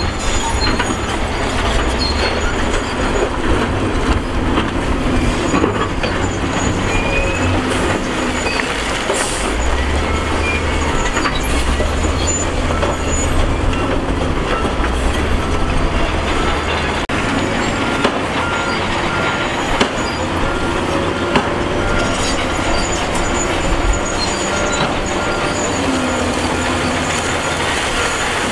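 SDLG wheel loader's diesel engine running under load as its steel bucket pushes and scoops broken rock and dirt, with rock grinding and scraping. The low rumble swells and eases as the machine works, and evenly spaced short high beeps join in about a third of the way through.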